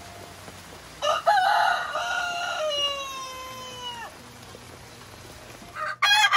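Rooster crowing close by: one long crow about a second in that lasts about three seconds and drops at the end, then a second crow starting near the end.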